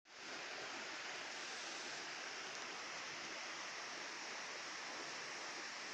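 A steady, even rushing noise, strongest in the upper range, with nothing else standing out.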